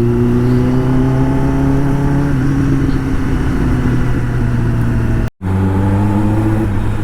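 Kawasaki ZX-10R inline-four engine running at a fairly steady pitch that sags slightly. It cuts out abruptly for a moment about five seconds in, then carries on.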